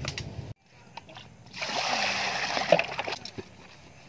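A kitchen knife tapping on a wooden chopping board, cut off suddenly. Then water splashing into a large aluminium basin for about a second and a half.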